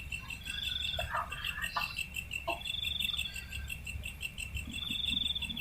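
Insect chorus: a steady high pulsing chirr, with a higher trill of under a second repeating about every two seconds, and a few faint short knocks.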